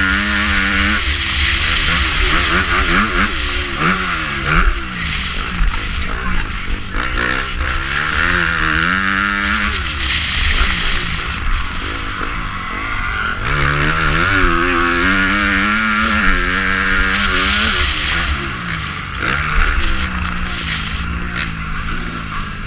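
450-class motocross bike engine revving hard and easing off again and again, its pitch climbing and dropping with the gear changes, under heavy wind noise on a helmet-mounted camera.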